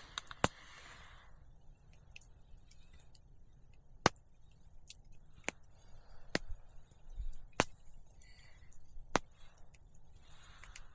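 Wood campfire crackling: sharp, irregular pops every second or two among fainter ticks.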